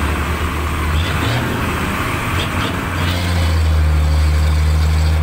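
A motor vehicle engine running close by, a steady low hum that grows louder about three seconds in, over street traffic noise.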